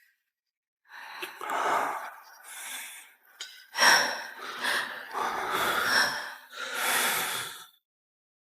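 A woman's breathy gasps and groans, several in a row, as her sore back is massaged; they stop abruptly near the end.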